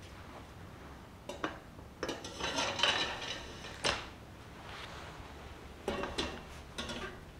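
Metal mesh drawers clinking and scraping against the wire frame of a pull-out organizer as they are handled and slid onto their rails: scattered light metallic clicks and knocks, busiest about two to three seconds in.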